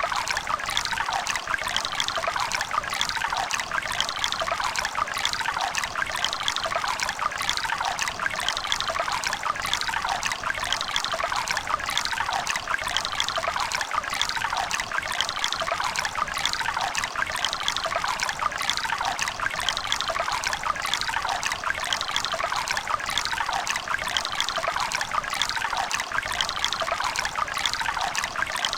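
A river running steadily over rocks, a continuous rushing and babbling with many small splashes and gurgles.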